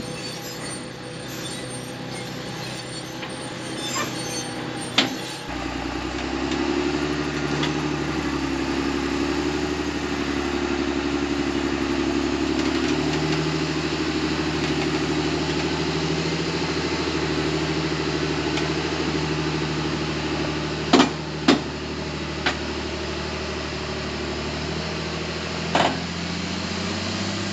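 A heavy diesel farm machine's engine running steadily under load while a grain wagon is hauled along a rough track. The engine gets louder and deeper about five seconds in. A few sharp knocks, two close together about 21 seconds in, come from the wagons jolting over ruts.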